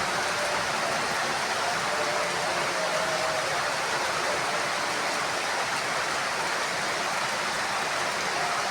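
Heavy rain falling on a house roof, a steady, even hiss with no thunder.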